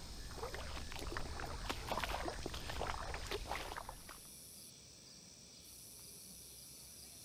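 River water splashing and sloshing in short irregular bursts for about four seconds. Then it drops away to a faint, steady, high-pitched hum of evening insects.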